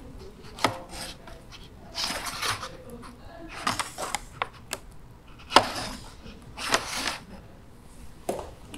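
Laser-cut wooden panels and 3D-printed hinges of a model origami door clacking and scraping as the door is swung and folded by hand. The sound is a series of separate knocks and short rubbing scrapes, the sharpest knock about halfway through.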